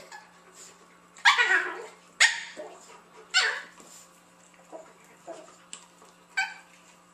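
A dog barking during rough play between a large white dog and a small puppy. There are three loud barks about a second apart, starting just over a second in, each falling in pitch, then a shorter one near the end.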